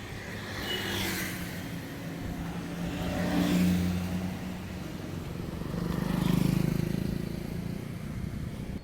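Road traffic: motor vehicles passing close by with a steady engine hum, swelling three times as they go past, loudest near the end.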